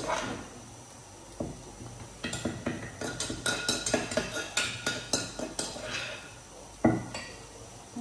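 Wooden pestle pounding and mashing tomato chili paste in a mortar: irregular dull knocks, about three to four a second at the busiest, with one sharper knock about seven seconds in.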